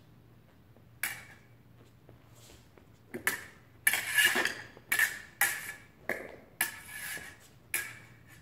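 Steel fencing blades clashing: one clink about a second in, then a quick run of about eight sharp metallic strikes, each with a brief ring, as the blades are engaged in a fencing lesson drill.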